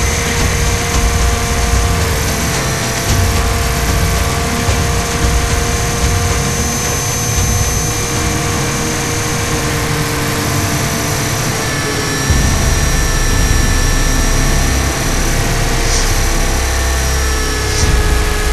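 Radio-controlled 500-size UH-60 Black Hawk scale helicopter in flight, heard from its onboard cockpit camera: a steady motor and gear whine with rotor noise, its pitch shifting slightly. Wind rumble on the microphone underneath gets louder about twelve seconds in.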